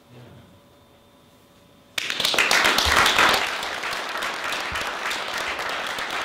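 Audience applauding, starting suddenly about two seconds in after a short quiet, as a panel speaker finishes his remarks.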